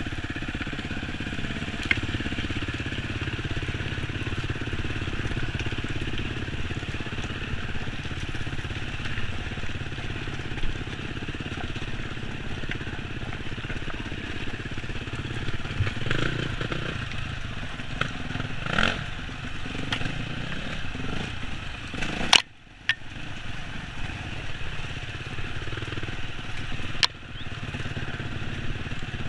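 Enduro dirt bike engine running under way over a rocky trail, with sharp knocks from the bike over stones now and then. A loud knock a little over two-thirds through is followed by a brief dropout of the sound.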